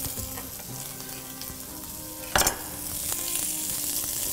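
Thinly sliced onions sizzling steadily in olive oil in a frying pan, just added to start softening. There is one sharp knock about two and a half seconds in.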